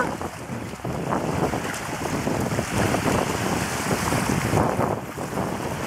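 Small waves lapping and breaking on a pebbly lakeshore, with wind buffeting the microphone.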